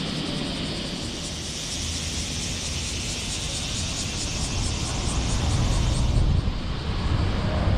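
Car on the move: steady road and tyre noise with engine rumble. The low rumble grows louder about five seconds in, while a high hiss falls away a second later.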